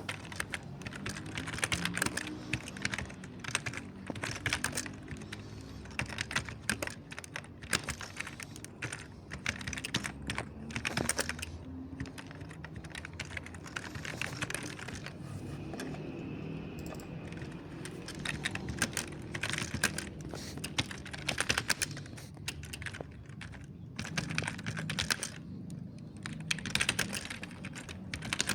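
Typing on a mechanical keyboard: soft key clicks in quick runs, with a sparser, lighter stretch in the middle.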